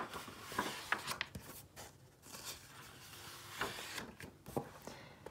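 Paper pages of a hardcover picture book being handled and turned: soft rustling and rubbing of the paper, with a few small clicks.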